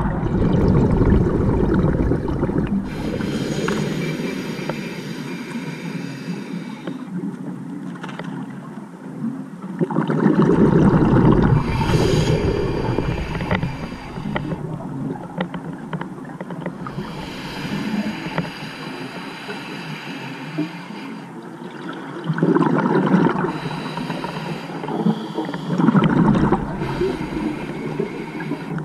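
Scuba diver breathing on a regulator, heard underwater through the camera housing: four loud bubbling surges of exhaled air, with a high hiss of inhaling through the regulator in between.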